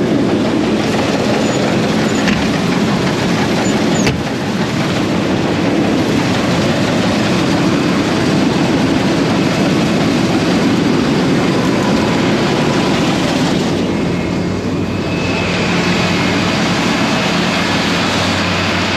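Large farm machinery running steadily under load, a loud continuous drone of engine and working mechanism.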